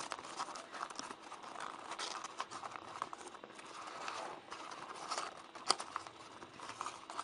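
Origami paper being handled and folded: continuous rustling and crinkling with many small clicks as creases are pressed, one sharper click near the middle.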